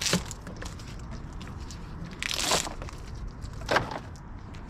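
Insulated copper wire and its stripped plastic insulation crunching and crinkling as they are worked through a wire stripper and handled, in three short scraping bursts.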